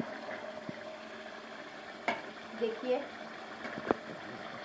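Chicken and spice masala frying and bubbling steadily in a metal pot, still wet and being cooked down until its water dries off. A steel spoon clicks sharply against the pot twice, about two seconds in and again near the end.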